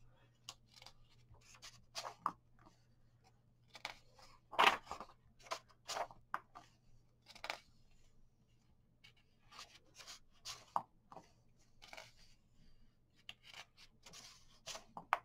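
Paper pages of a paperback coloring book being handled and turned: soft, irregular rustles and light crackles, with one louder rustle about five seconds in.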